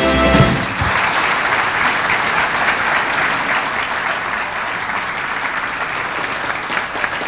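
Audience applauding steadily as a speaker is introduced. A few held musical notes end under a second in, just before the clapping takes over.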